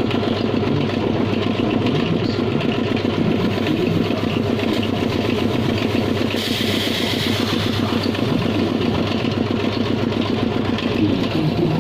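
Engine or motor running steadily with a fast, even pulse. A burst of hiss comes about six seconds in and lasts about a second.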